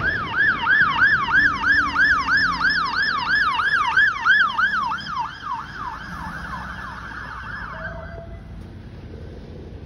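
Fire engine siren sounding a fast yelp, its pitch sweeping up and down about three times a second. It grows fainter from about five seconds in and stops near eight seconds.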